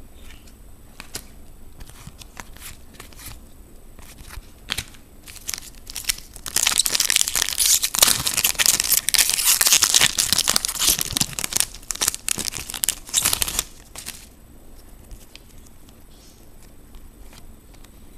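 Foil wrapper of a trading-card pack being torn open and crinkled, loud for about seven seconds in the middle, with faint scattered ticks of cards being handled before and after.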